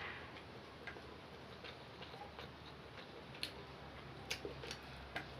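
A person eating: scattered sharp clicks at irregular intervals, with several close together about three and a half to five seconds in, over a low steady hum.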